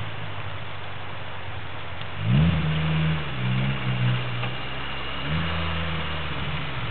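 Suzuki SJ413's 1.3-litre four-cylinder petrol engine running at low revs while driven slowly over rough ground, revving up about two seconds in and again about five seconds in.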